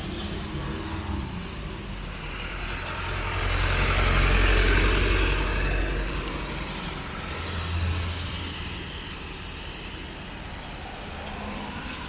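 Street traffic: a motor vehicle passes close, its engine rumble and tyre noise swelling to a peak about four to five seconds in and then fading, with another engine humming lower near the end.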